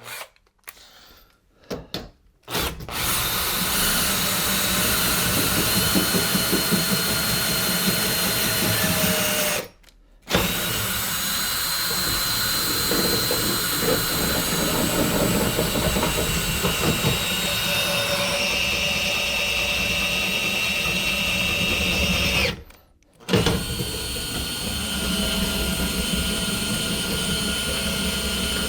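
Cordless drill-driver running steadily as it winds a caravan corner steady's freshly greased spindle out and back in, with the steady's mechanism turning under it. It stops briefly about ten seconds in and again near twenty-three seconds, and runs a little quieter after the second stop.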